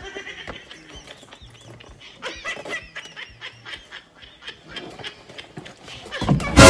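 A bag swung against a man's head near the end: a sudden loud thump with rustling. Before it there are only faint chirps and small ticks.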